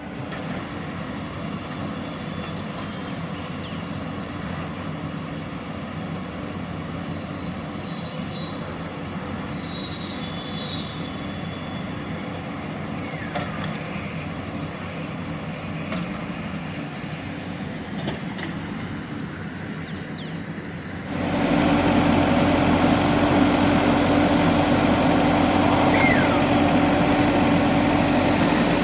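JCB 3DX Plus backhoe loader's diesel engine running steadily. It becomes suddenly louder about two-thirds of the way through.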